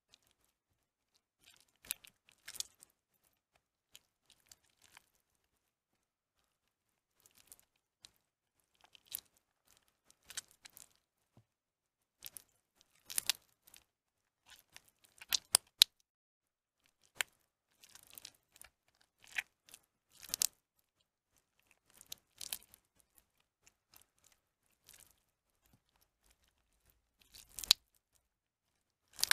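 Soaked, mushy bar soap being squeezed and broken apart by hand into flakes: a string of short, irregular crumbling sounds with quiet gaps between.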